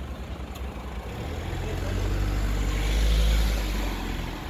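A car driving past close by, its engine and tyre noise growing louder to a peak about three seconds in, then fading as it moves off.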